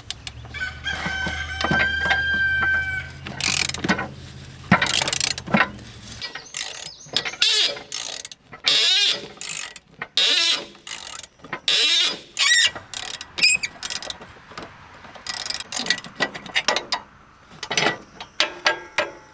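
A rooster crows once, a held call about a second in, over a low steady hum that stops about six seconds in. Then come a run of sharp metal clanks and knocks as the old tractor seat and its mounting are worked loose, mixed with short wavering squeaks.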